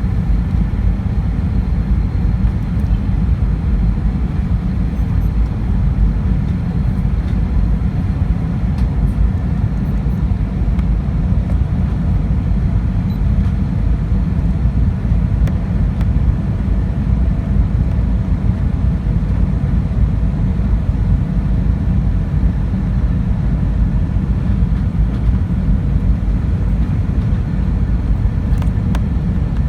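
Airbus A320 in flight on approach, heard from inside the passenger cabin: a loud, steady low rumble of engine and airflow noise with faint steady tones above it.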